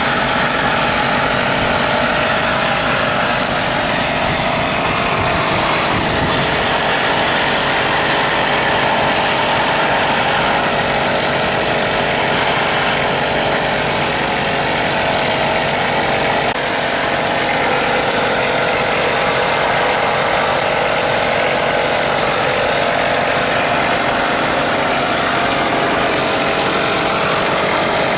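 A motor-driven machine running steadily and loudly, a continuous engine-like drone with a few steady tones over a dense noise.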